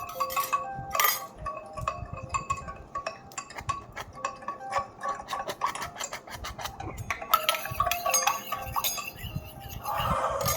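A utensil clinking and tapping against a bowl in quick irregular strokes as a slime mixture is stirred.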